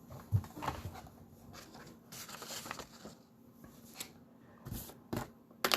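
Scattered light clicks, taps and knocks of objects being handled at a desk, with faint room hiss; the sharpest click comes near the end.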